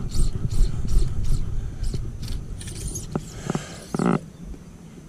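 Low rumble of wind buffeting the microphone, with scattered small clicks and knocks.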